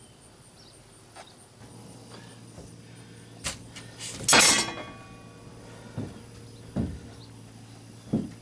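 Scattered knocks and thumps of someone stepping and moving about inside a stripped boat hull, with one louder clattering knock about four seconds in.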